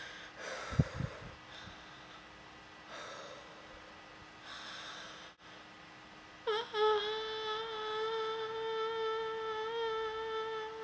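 A woman's breaths, with a low bump on the microphone near the start. Then, about six and a half seconds in, she begins singing one long note on an open 'oh', held steady in pitch: the start of a note she is trying to hold as long as she can.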